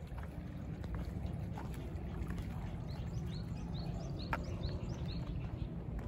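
Water running steadily along a concrete irrigation channel beside a rice paddy. Midway through, a bird gives a quick series of short high chirps, about four a second. A few light clicks sound along the way, the sharpest a little after four seconds in.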